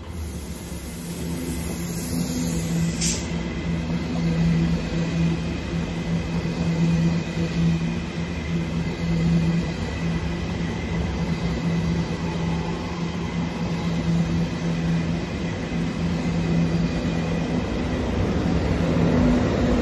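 ÖBB Railjet Xpress passenger train running through the station at speed: the steady rumble and wheel-on-rail noise of its passing carriages, with a steady low hum. It grows louder near the end as the red Taurus electric locomotive pushing at the rear goes by.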